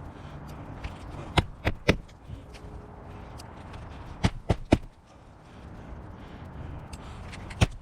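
Hammer driving roofing nails into an asphalt shingle: sharp strikes in quick groups of three, about a quarter second apart, with a group roughly every three seconds.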